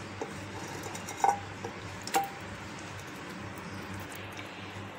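Glass bowl knocking against the rim of an unglazed clay pot as marinated chicken and vegetables are tipped in: a few sharp clinks with a short ring, the loudest about a second in and another about two seconds in.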